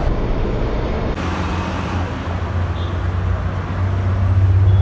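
Road traffic noise: a steady low engine hum under a wash of street noise, growing louder near the end.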